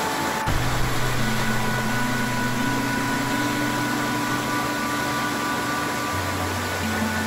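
Soft background music of long held notes, its low bass note moving to a new pitch a few times, over a steady even hiss.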